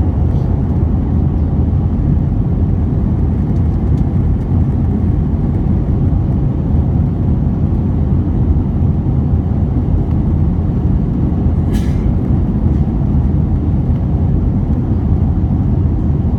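Steady low rumble of an Airbus A320's jet engines at climb power, mixed with rushing airflow, heard from inside the passenger cabin just after takeoff.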